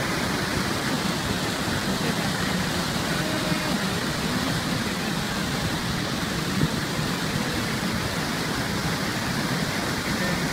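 Steady rushing of a muddy, flood-swollen stream pouring over rocks and debris.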